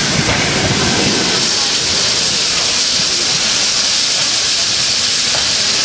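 Steady hiss of steam venting from the standing L-class steam locomotive L-3055, taking over about a second and a half in from the low rumble of a passing electric train's carriages.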